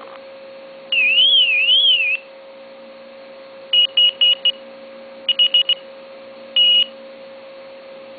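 Dog whistle app on a phone playing tones through the phone's speaker: a warbling whistle sliding up and down about a second in, then groups of short high beeps (four, then four quicker ones) and a single longer beep, over a steady faint hum.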